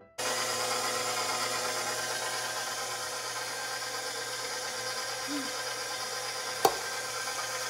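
Electric kitchen mixer running at a steady speed while mixing cookie dough, cutting in abruptly at the start. One sharp knock sounds near the end.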